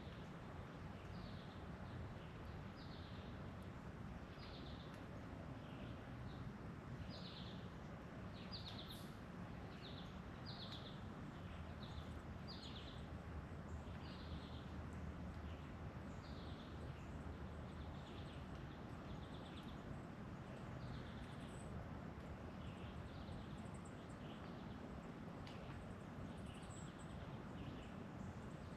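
Birds chirping outdoors: a run of short, high, falling chirps, about one or two a second, thickest in the middle and thinning toward the end, over a steady low background noise.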